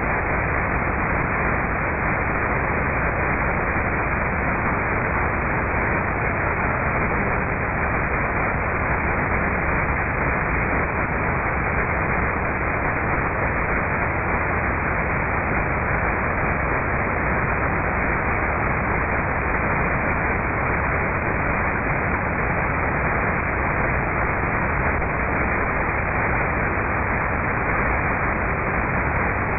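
Shortwave radio receiver tuned to 6120 kHz, giving a steady, even static hiss with no treble and no programme sound: an unmodulated carrier on the air.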